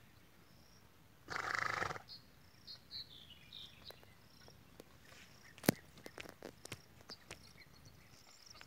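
Insects chirping in high short bursts around a horse-drawn plough at work, with a loud rough burst about a second and a half in. A single sharp knock comes near the middle, followed by a few lighter clicks.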